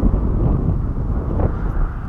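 Wind buffeting an action camera's microphone: an uneven low rumble that swells in gusts at the start and again about one and a half seconds in.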